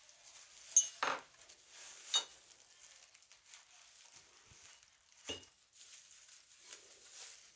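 Stainless steel slingshot being handled: a few sharp metallic clinks and taps, some with a brief high ring, over soft rustling.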